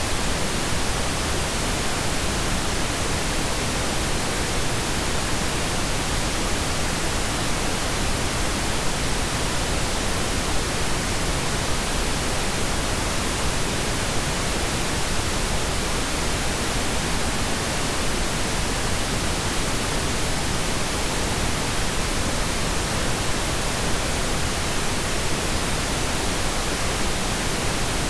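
Steady, even hiss like static, with no other sound: the recording's background noise while the narrator is silent.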